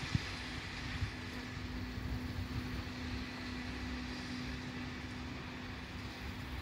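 Wind buffeting the microphone, with a steady, faint engine hum from some distant vehicle or machine that fades away about six seconds in. Two short knocks sound near the start.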